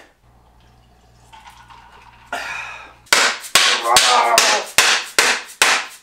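A length of PVC pipe slid over a RockShox Lyrik fork's steerer tube and slammed down repeatedly to seat the crown race: a fast run of about a dozen hard knocks, starting about three seconds in.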